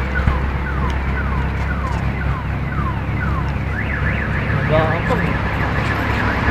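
Electronic car alarm cycling through its tones: a run of falling chirps about two a second, then a fast up-and-down warble from about four seconds in, over a low steady engine rumble.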